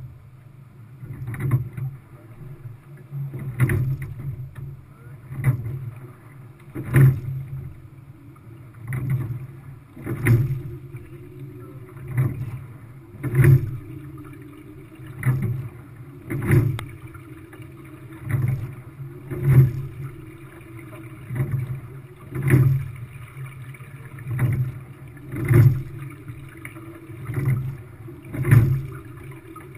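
Quad sculling boat under way at a steady stroke rate of about 20 strokes a minute: a sharp knock about every second and a half, the louder one every three seconds, over the steady rush of water along the hull. The knocks are the oars working in the oarlocks at the catch and the release.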